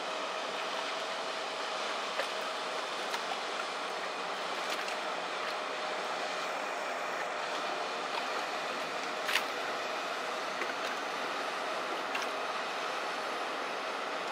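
Loaded inland tanker barge passing at speed: a steady mix of its 1200 hp MTU diesel running and water rushing along the hull, with a faint steady hum. A few light ticks, and one sharp knock about nine seconds in.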